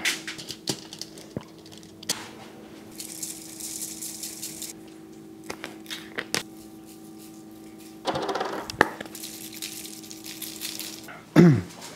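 Kitchen handling sounds as raw fish fillets are laid on aluminium foil and seasoned: scattered light clicks and taps, a soft hiss lasting under two seconds about three seconds in, and a brief rustle about eight seconds in, over a faint steady hum.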